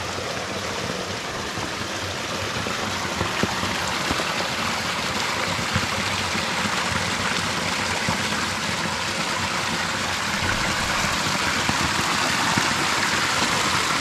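A mountain stream running over rocks: a steady, even rush of water.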